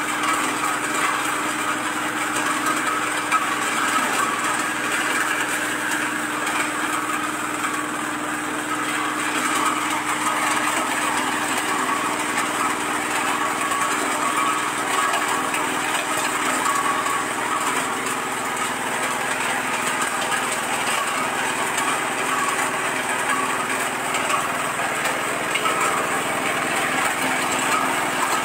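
Small engine running steadily, driving an areca-nut cracking machine, with a continuous crackling clatter of nuts being cracked and shelled as they are fed through.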